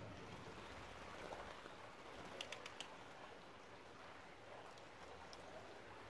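Near silence: a faint background hiss, broken by a quick run of four or five sharp clicks about two and a half seconds in.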